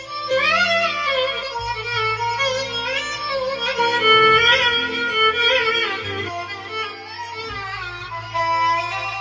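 Korg Pa5X arranger keyboard playing a violin voice: an ornamented melody with pitch slides over a steady bass accompaniment.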